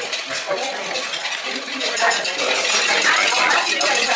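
Busy, rapid clinking and scraping of utensils against glassware and dishes, with voices in the background.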